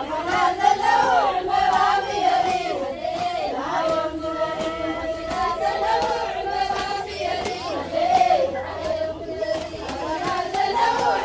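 A crowd of women chanting a mihlela, an Orthodox supplication prayer, together, many voices overlapping and wavering in pitch.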